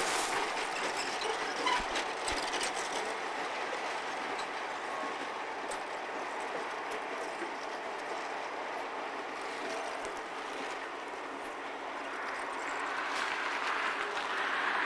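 CN EMD GP-series ('Geep') diesel locomotives rolling slowly past, making a steady noise of wheels and running gear on the rails with a few light clicks; it grows a little louder near the end.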